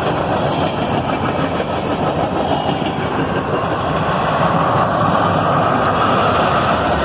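CSX manifest freight train's cars rolling past, a loud steady rumble of steel wheels on the rails that swells a little after about four seconds.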